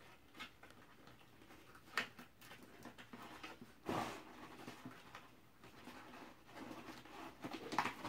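Faint handling sounds as white packaging ties are untangled from a toy's cardboard backing: scattered light rustling with a sharp click about two seconds in and a short, louder rustle about four seconds in.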